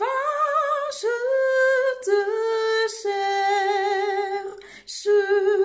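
A woman singing a cappella, alone: slow, sustained notes with a gentle vibrato, a long held note in the middle and another near the end, with short breaths between phrases.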